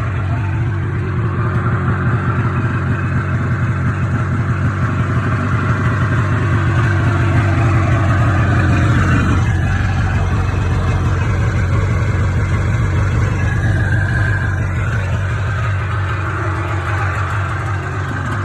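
Freshly rebuilt 1977 Ski-Doo Olympic 440 two-stroke snowmobile engine running steadily just after a cold start, getting a little louder for a few seconds around the middle.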